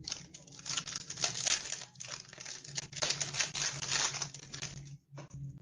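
Foil wrapper of a trading card booster pack being torn and crinkled in the hands, a dense crackle lasting about five seconds that stops shortly before the end.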